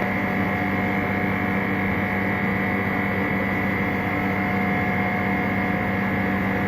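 Steady machine hum with several fixed tones over a noise bed, unchanging throughout.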